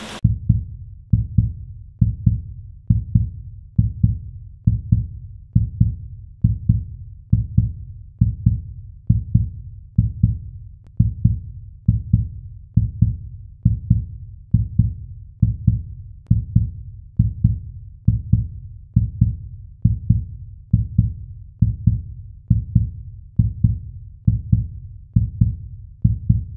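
Background music of a deep, low thudding beat, one thud a little more often than once a second, with nothing else over it.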